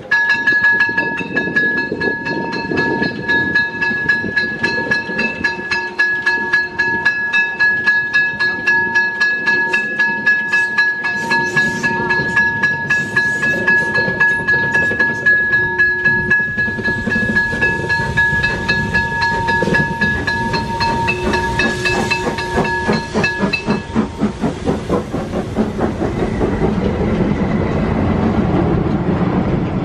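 A slow train passing on depot tracks: a small steam tank locomotive hauling a coach, followed by a diesel shunter. Wheels click in a steady rhythm under a high, steady squeal of several tones that stops about 24 seconds in. Near the end a diesel engine rumbles close by.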